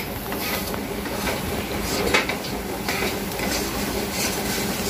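Wooden spatula stirring and scraping a frying spice paste around a kadai, with repeated scrapes over a steady sizzle. The masala is fried through and is being given a last stir.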